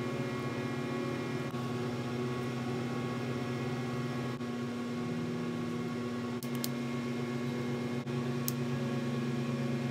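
Steady droning hum of a shop furnace running, with a few faint sharp clicks about two-thirds of the way in.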